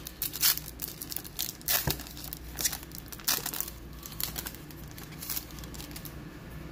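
Trading-card pack wrapper crinkling and being torn open by gloved hands, a run of sharp crackles that thin out near the end.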